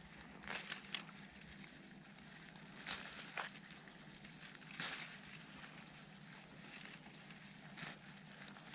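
Pine branches and dry pine needles rustling and crackling as gloved hands push into them and grab them, with a sharp crunch or snap every second or two.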